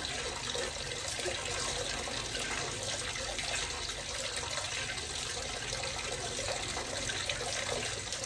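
A stream of water pouring from above into a full plastic basin, splashing steadily on the water's surface.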